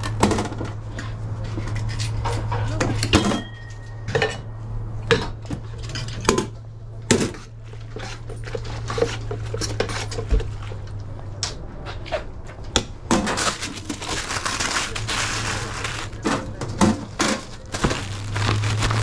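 Stainless steel lids and metal tongs clanking on a hot dog cart's steam table, in many short, sharp knocks over a steady low hum. A few seconds of rustling come about two-thirds of the way through.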